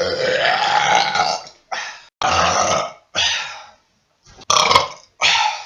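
Men burping loudly: one long burp of about a second and a half that rises and falls in pitch, then five shorter burps in quick succession with sudden silent gaps between them. These are beer burps.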